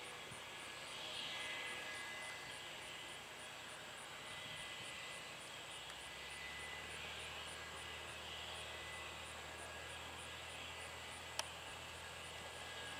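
Airbus H135 (Eurocopter EC135) helicopter idling on the ground after landing: steady turbine whine and rotor noise, with a lower hum that grows about halfway through. A single sharp click near the end.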